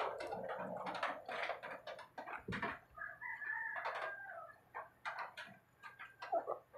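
Close-up eating with the fingers: chewing and lip-smacking with many small clicks, then a sip from a mug near the end.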